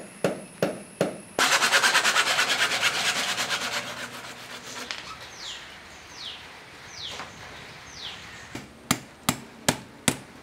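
A hammer tapping in the clamps that hold a PVC rainwater pipe to a wall: a steady run of sharp taps, two or three a second, at the start and again from near the end. In between comes a few seconds of loud, fast rasping that fades, then four short falling chirps.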